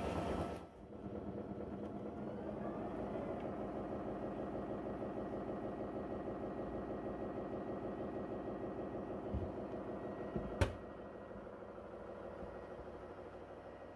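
Narwal T10 base station washing the docked robot's mopping pads: a steady mechanical hum with a fast, even pulse as the pads spin and scrape against the ribbed plastic washboard while water is pumped onto them. A single sharp click about ten and a half seconds in.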